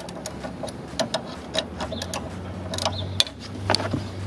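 Ratcheting wrench clicking in short, irregular strokes as the nut on a new front sway bar link is run down tight.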